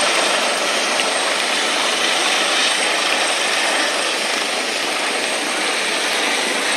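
Airbus H145M military helicopter flying low over water, its rotor and turbine engines making a loud, steady rushing noise.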